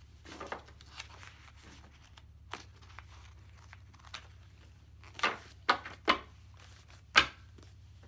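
Paper inserts of a personal-size planner rustling and being handled, with a run of sharper paper rustles and clicks in the second half, the loudest about seven seconds in.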